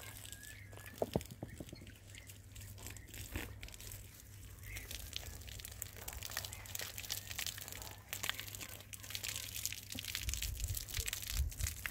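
Scattered dry crackling and rustling of garden plants as flowers and stems are handled and brushed, with wind buffeting the microphone near the end.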